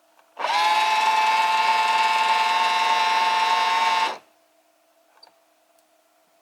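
Old cordless drill's motor spinning up with a short rising whine, running at a steady speed for about three and a half seconds, then stopping abruptly as the controller cuts it off at the set revolution count. A faint click about a second after it stops.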